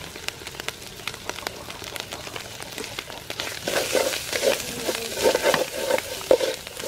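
Curry paste sizzling in hot oil in an aluminium pot, with faint scattered crackles. About three and a half seconds in, a wooden spoon starts stirring it, and the louder scraping strokes of the spoon take over.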